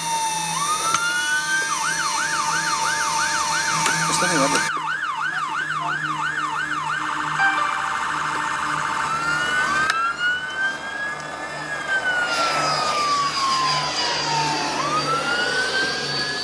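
Emergency vehicle siren cycling through its tones. A slow rising and falling wail switches to a quick repeated yelp of about two sweeps a second, then a short faster warble, then back to the slow wail.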